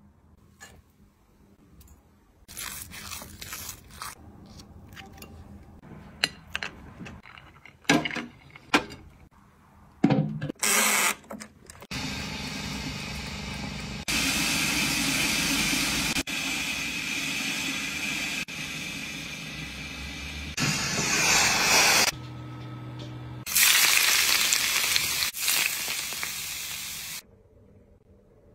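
Kitchen food-preparation sounds: light taps and clicks as stuffed clams in their shells are handled and set on a plate, with a few sharper knocks about eight to ten seconds in. These give way to long stretches of steady hiss over a low hum, which stop abruptly near the end.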